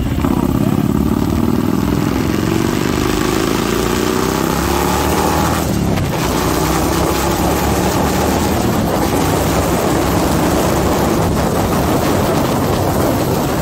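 Harley-Davidson Milwaukee-Eight 114 V-twin with an S&S 475 cam running under way on the road, on a freshly auto-tuned fuel map. Its pitch rises over the first few seconds as it accelerates, then it runs on at speed under a rough rushing noise.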